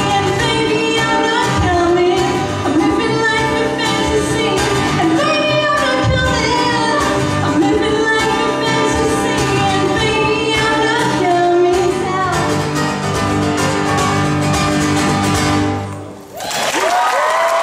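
A woman singing live to her own strummed acoustic guitar, the song ending about 16 seconds in; the audience then breaks into applause with whistling.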